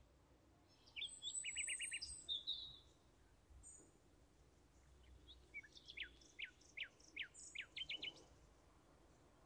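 Faint songbird song: a quick trill of high chirps about a second in, then a run of falling chirps that speed up, from about five to eight seconds in.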